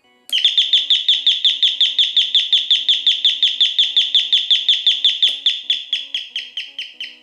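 Electronic AC calling bell ringing as a motion alarm, set off by a PIR sensor: a rapid, even train of high chirps, about six a second, each dropping slightly in pitch, growing fainter near the end.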